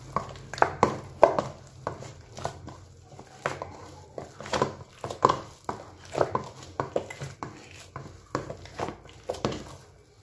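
Donut dough being kneaded by hand until smooth: irregular soft slaps and squishes, about two a second.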